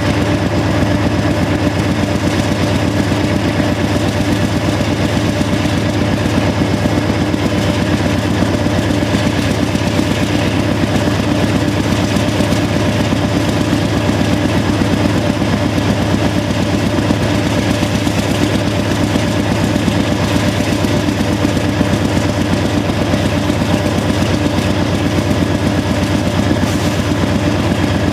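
GE AC4400CW diesel-electric locomotives' V16 diesel engines working hard under heavy load, a loud, steady engine note with a fast exhaust beat, heard close to the exhaust stack on the locomotive roof.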